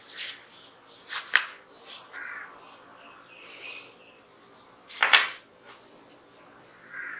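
Sharp clicks and knocks of small metal pistol parts being handled and taken apart, the loudest about five seconds in, with softer brief scrapes between them.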